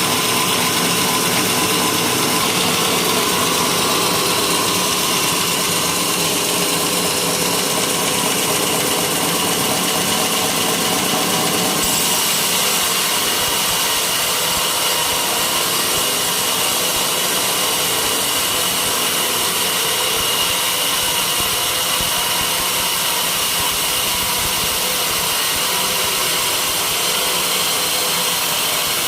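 Sawmill saw running steadily through a white teak beam, a continuous cutting whine over the motor's hum, its tone shifting slightly about twelve seconds in.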